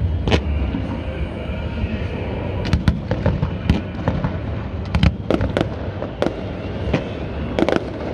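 Fireworks shells bursting overhead: a string of sharp bangs at irregular intervals, some in quick clusters of two or three, over a steady background rumble.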